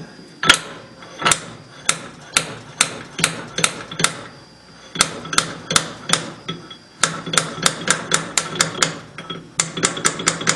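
Stainless steel Stirling engine hot cap being rapped and worked back and forth on a brass lathe mandrel to free it: a run of sharp metallic knocks, two to four a second, pausing briefly twice. The cap is stuck fast, held on by a vacuum inside it.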